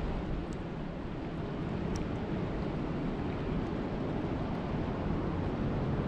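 Steady rain falling on a lake's surface: an even hiss and patter, with a few sharp single drop ticks.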